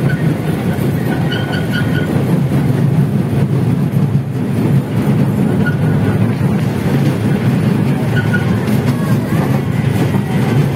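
Toy train running along its track, heard from on board in the carriage: a steady low rumble.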